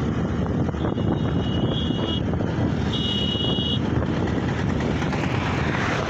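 Wind buffeting the microphone and road noise from a vehicle moving along a highway, as a loud steady rumble. Two high, steady beeps sound, one about a second in and a shorter one about three seconds in, and a hiss swells near the end.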